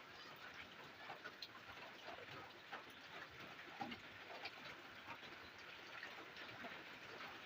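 Faint steady rain: a soft hiss with a dense, irregular patter of individual drops ticking through it.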